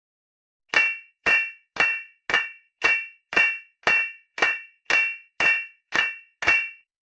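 Hammer blows on steel in forging a Japanese sword: twelve evenly spaced ringing metallic clangs, about two a second, each ringing briefly at a bright pitch before the next strike.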